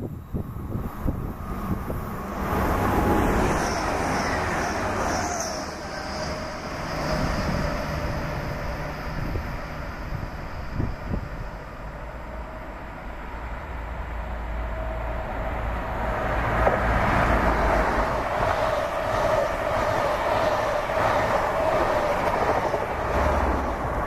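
Diesel freight locomotives running as they approach: a Class 59 hauling a loaded stone train and a Class 66, both with EMD two-stroke diesel engines, under a steady low rumble. The sound grows louder from about two-thirds of the way in as the stone train draws near.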